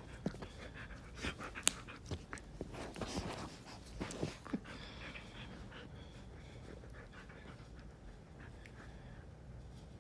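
Husky panting open-mouthed while play-fighting with a hand, with scattered bumps and knocks from the scuffle in the first half; after about five seconds it settles to quieter panting.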